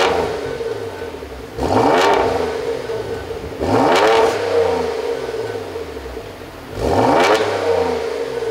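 Porsche Macan GTS's twin-turbo V6 and exhaust revved in sharp blips from idle, about four times, each rising and falling back, with the idle running steadily between them.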